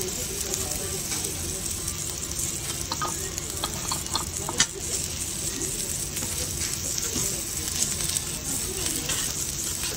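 Noodles and egg sizzling on a hot teppan griddle while a wooden spoon stirs and scrapes them, with a few sharp taps of utensils on the metal about halfway through.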